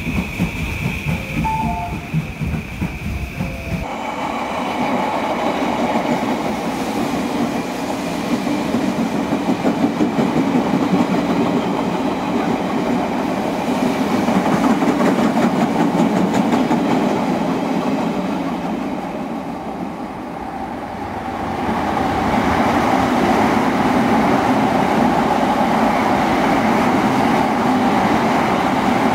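Electric trains running through station platforms one after another, the steady rumble and clatter of wheels on rails. The sound changes abruptly about four seconds in, fades to a lull about two-thirds of the way through, then swells again as the next train passes.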